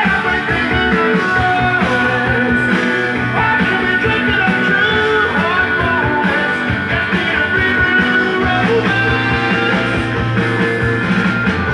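A song with singing and guitar, played back from a vinyl LP on a Pioneer PL-400 direct-drive turntable.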